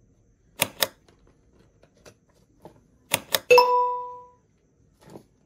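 Two pairs of mouse-click sound effects, then a bell-like chime that dings once and fades over about a second: the sounds of an animated subscribe-button and notification-bell overlay.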